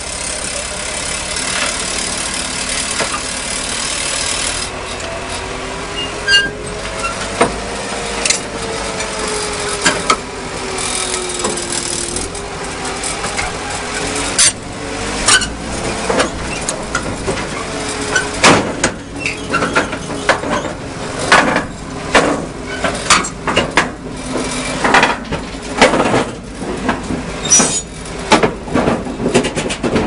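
Komatsu D31PX crawler bulldozer's diesel engine running, its pitch rising and falling as it drives. From about halfway on, its steel tracks clank and knock again and again as they climb onto the steel ramps and deck of the truck bed.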